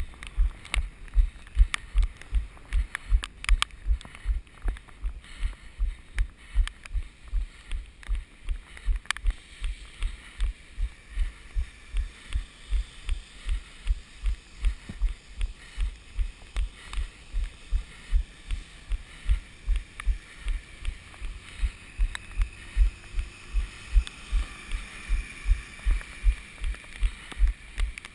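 Running footfalls, a steady low thud about three times a second, heard through a GoPro action camera.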